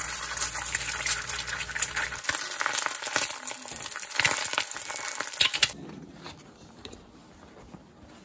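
Egg frying in an IKEA Sensuell stainless steel frying pan: a dense crackling sizzle that cuts off abruptly about two-thirds of the way through, followed by faint rustling of a cloth bag.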